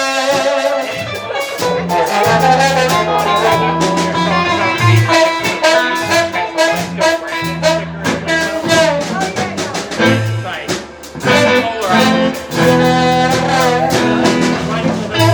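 A live band playing jazz, with horns holding sustained notes over bass and a steady drum beat.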